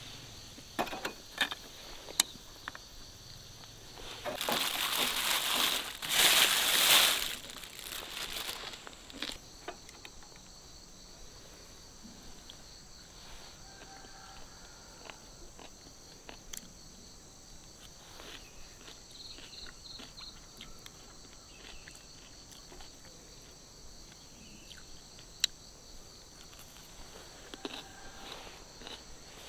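Crickets chirping in a steady high-pitched trill. In the first several seconds there are clicks and two loud bursts of crinkling and rustling, the louder about a quarter of the way in.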